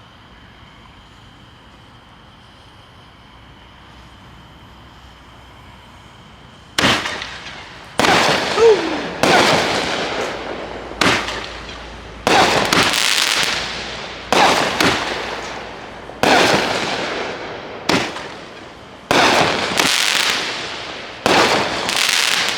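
A 200-gram, 7-shot firework cake firing. About seven seconds in, after a fairly quiet lead-in with a faint steady high tone, comes a series of sharp bangs, one every second or two. Each is followed by a fading hiss.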